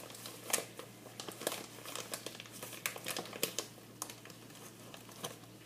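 A bag of brown sugar crinkling as it is handled and scooped from, in a run of irregular crackles that thin out near the end.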